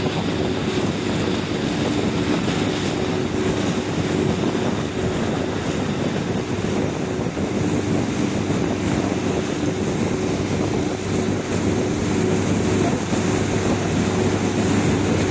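Boat engine running steadily under way, a constant drone over the rush of water churned up in its wake.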